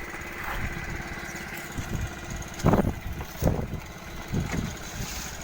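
Small fishing boat's engine running steadily, with a few louder knocks about midway through.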